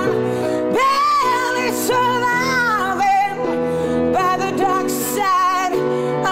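A woman singing long, held notes with wide vibrato and bends in pitch, over steady piano chords.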